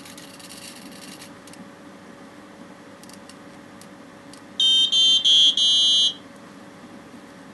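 A hobby servo whirs briefly as it turns its arm, then a piezo buzzer gives four quick, high electronic beeps in a row.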